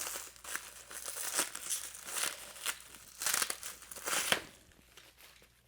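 Packaging crinkling and rustling on and off as parts are lifted out of a box, dying away about four and a half seconds in.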